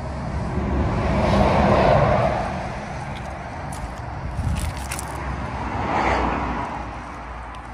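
Road traffic passing: the tyre and engine noise of one vehicle swells and fades about two seconds in, then a second, quieter one passes about six seconds in, over a steady low rumble.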